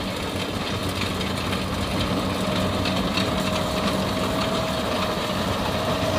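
Kubota DC-60 rice combine harvester running steadily while cutting, its engine and threshing machinery growing slightly louder as it comes closer. A steady high whine joins in about two seconds in.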